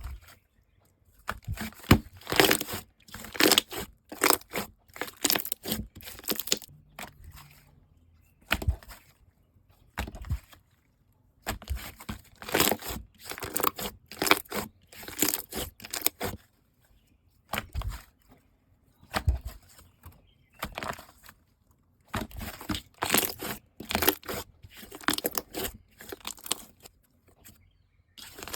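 Slime being squeezed and poked by hand, making bursts of crackling, popping clicks with short pauses between.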